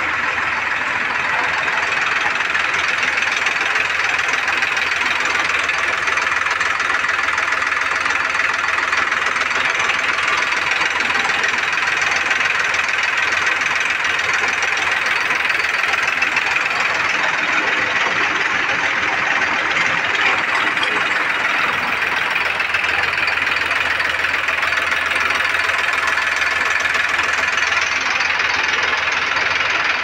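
Tractor diesel engine running at steady speed, driving a poultry feed grinder and mixer through a belt and a large pulley: a constant mechanical drone of engine clatter and spinning machinery.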